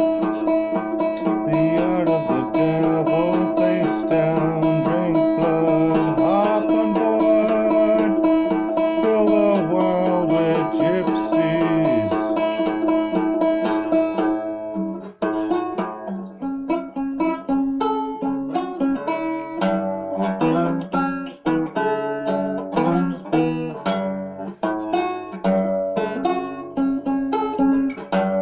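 Instrumental music on plucked string instruments such as banjo and guitar. In the first half the notes are held long, with some gliding in pitch; from about halfway it changes to quick picked notes that die away fast.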